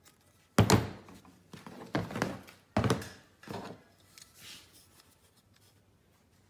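Knocks and clunks of plastic parts being handled and set down on a workbench: a sharp, loud knock about half a second in, then three more over the next three seconds.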